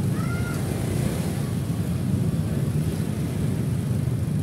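Steady low rumble of a motor scooter riding through street traffic, with engine and wind noise on the microphone. A short high tone sounds right at the start.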